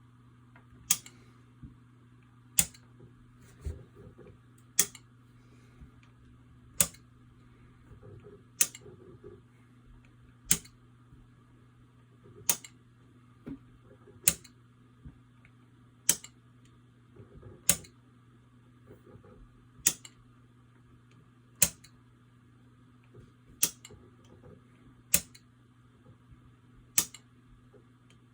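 Sharp single clicks about every one to two seconds as a light toggle switch is flipped slowly on and off. This is a test of whether the switch input reliably switches the light through a Fibaro FGS-223 relay module. A faint steady low hum sits underneath.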